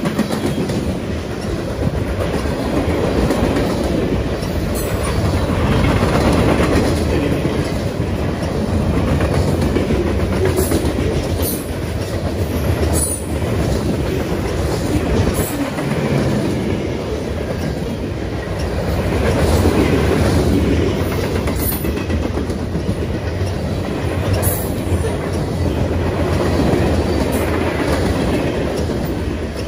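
Freight cars of a long train rolling past: a steady rumble of steel wheels on rail with clickety-clack over the rail joints and scattered sharp clicks, swelling and fading in waves.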